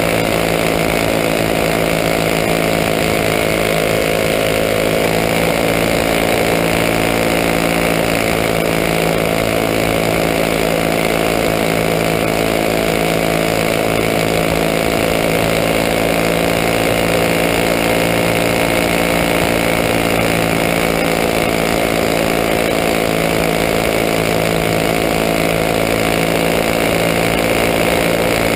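Racing champ kart's engine running flat out at a steady, nearly unchanging pitch, heard loud and close from on board the kart.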